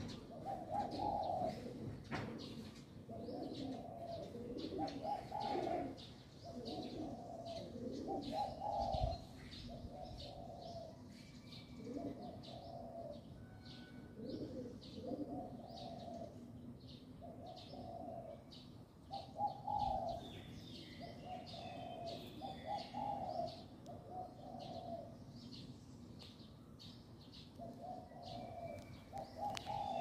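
A dove cooing over and over in short runs of low coos. Faint chirps of small birds sound behind it.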